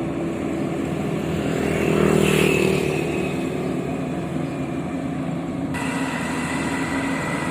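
Combine harvester's engine running steadily, growing louder for a moment about two seconds in; a higher hum cuts in suddenly near the end.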